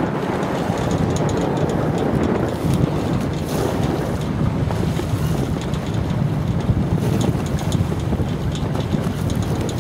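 Wind buffeting the microphone in a steady low rumble over the wash of choppy water around a boat under way.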